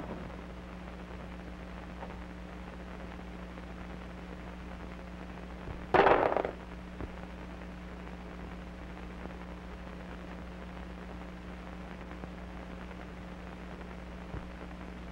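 A short scuffing thump about six seconds in: a man's shoe stepping down hard on a wrapped caramel. It sits over the steady hum and hiss of an old film soundtrack.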